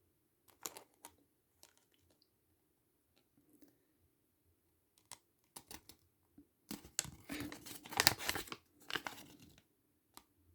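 Toy packaging crinkling and rustling as it is handled, with scattered small clicks; the handling gets busier about two-thirds of the way in.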